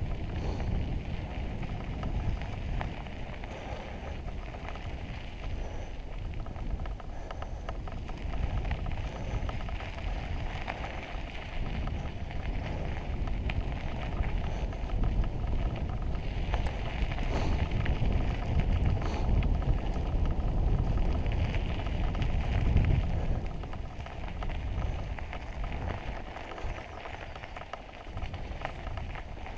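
Mountain bike rolling along a dirt and gravel trail: tyres crackling over the ground and the bike rattling, with wind rumbling on the camera's microphone.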